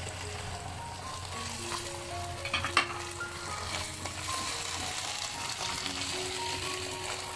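Sliced onions and tomato ketchup sizzling in hot oil in a kadhai while a spatula stirs them, with a few sharp knocks of the spatula against the pan about three seconds in.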